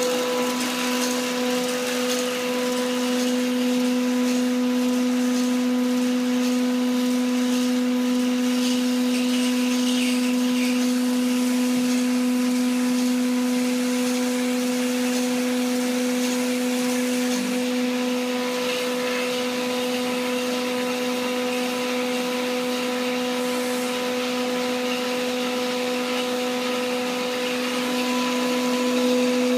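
An electric motor running steadily: a constant low hum with a hiss over it, unchanging throughout.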